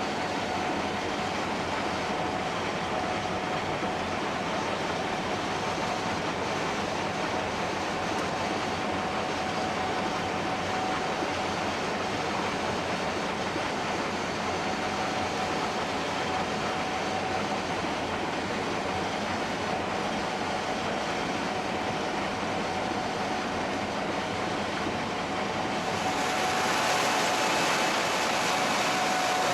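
Gleaner S67 combine running steadily while harvesting soybeans, a dense mechanical drone with a steady whine through it; it grows louder and brighter a few seconds before the end.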